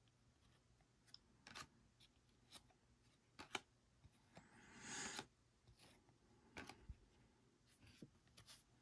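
Faint handling of Panini Prizm trading cards: scattered light clicks and flicks as cards are slid off a stack, with one soft swish of a card sliding about halfway through.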